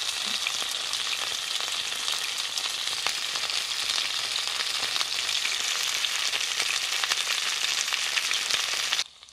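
Flour-dusted chicken breast pieces frying in sunflower oil in a frying pan: a loud, dense sizzle full of small crackling pops, which cuts off suddenly near the end.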